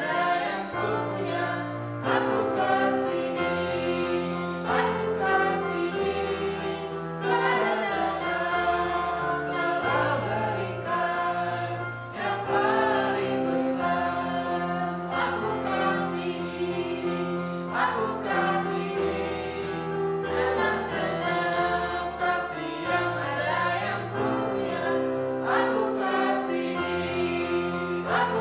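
Indonesian Christian worship song: singing voices over an instrumental backing, with held bass notes that change every couple of seconds and a regular percussive beat.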